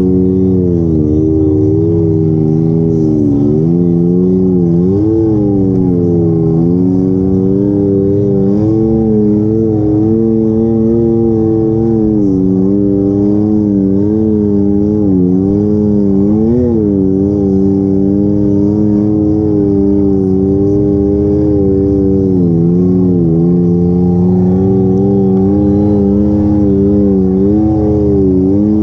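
Can-Am Maverick side-by-side's engine running under load on the move, its pitch rising and falling every second or two as the throttle is worked.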